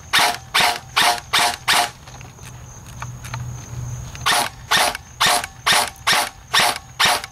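Airsoft electric rifle firing single shots at a steady rate of a little over two a second. It stops for about two seconds, then fires another run of shots.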